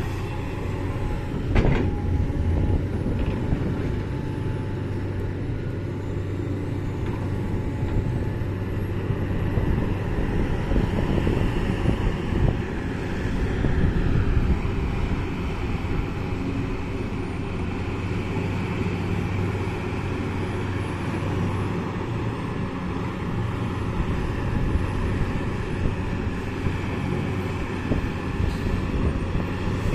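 Sumitomo 350 hydraulic excavator's diesel engine running steadily under load through its dig-and-dump cycle as it loads soil into a dump truck, with a sharp knock about a second and a half in.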